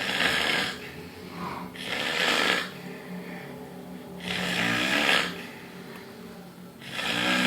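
A man in deep sleep snoring fairly loudly: four loud snores in a slow, even rhythm, about two to two and a half seconds apart.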